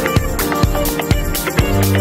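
Electronic backing music with a steady beat of about two beats a second.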